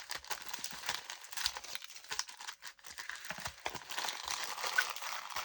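Plastic packaging of a diamond painting kit crinkling and rustling as it is handled, in irregular crackles.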